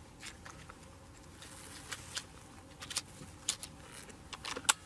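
Light clicks and clacks of a Reximex Zone PCP air rifle's rear cocking lever and magazine being worked to load a pellet, with the sharpest click near the end.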